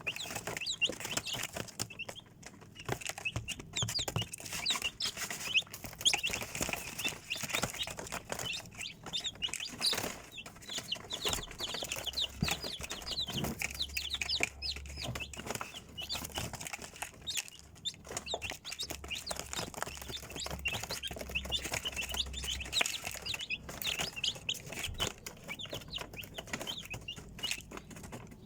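A brood of young chicks peeping continuously, many short high calls overlapping, with frequent clicks and rustling.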